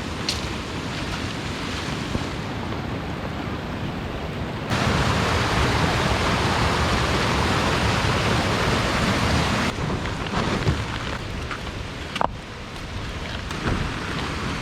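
Heavy rain falling steadily. About a third of the way in the rush grows louder for roughly five seconds, then drops back, with a few short knocks near the end.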